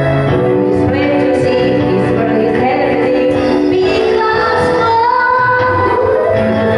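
A woman singing into a corded handheld microphone, her voice amplified over backing music, holding long notes that bend in pitch.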